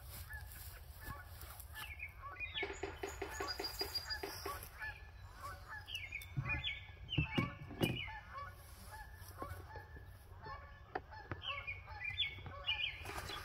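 Birds calling repeatedly in short pitched calls, over rustling and a few sharp knocks, loudest in the middle, as hollow plastic turkey decoys and hunting gear are handled.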